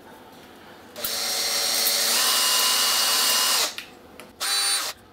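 Cordless drill running for about two and a half seconds, starting about a second in, drilling a hole through the plastic of a MagSafe 1 adapter's cable connector; a short burst follows near the end.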